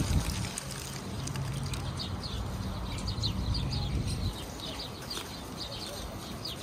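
Flock of feral pigeons taking flight, a loud flurry of flapping wings right at the start that thins to occasional flaps. From about two seconds in, many short, high, falling bird chirps repeat.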